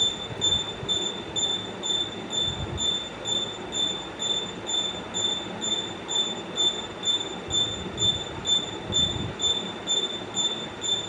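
A high-pitched squeal pulsing evenly about twice a second, over a low rumble.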